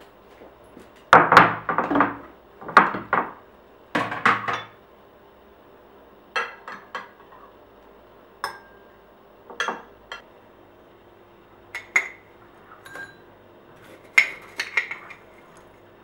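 Spoon and dishes clinking and knocking as yogurt is scooped from a glass dish into a ceramic bowl: a run of louder clattering knocks in the first five seconds, then scattered single clinks, some with a short ring.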